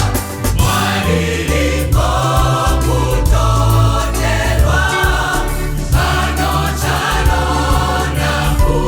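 Gospel choir singing held, changing notes over a band with a strong bass line and a steady drum beat.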